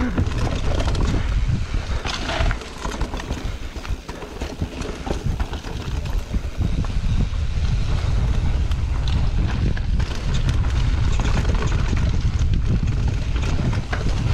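Wind rushing over the camera's microphone as a mountain bike descends at speed, with the tyres, chain and frame rattling and knocking over a rough dirt trail in a steady stream of small clicks.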